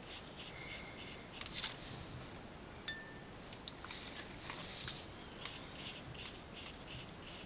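Faint brush strokes of a watercolor brush on paper while a swatch is painted, with one small sharp clink that rings briefly about three seconds in.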